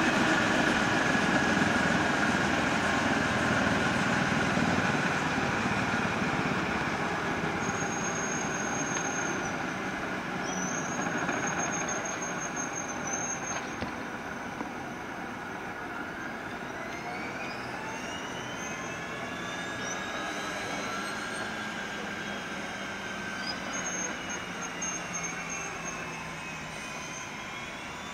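BK 117 helicopter's twin turbine engines and main rotor winding down on the ground, the whine and rotor noise fading steadily. Whining tones glide up and down through the second half.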